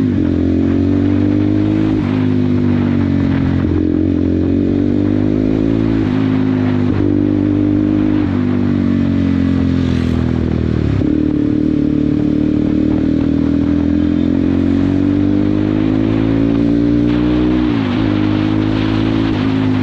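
Crossfire CF 250 Twin motorcycle's twin-cylinder engine and exhaust accelerating hard through the gears. The pitch climbs and drops sharply at each upshift, several times in the first half, then holds a steadier cruise with gentle rises and falls and a brief dip near the end.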